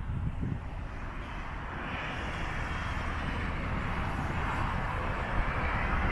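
Road traffic: a steady hiss of passing cars that grows louder from about two seconds in, over a low rumble.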